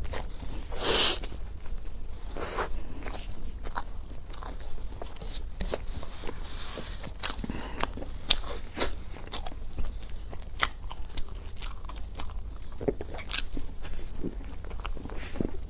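Close-miked eating of a soft, flaky-topped cake-like bread: a loud bite about a second in, then steady chewing with many sharp wet mouth clicks and smacks.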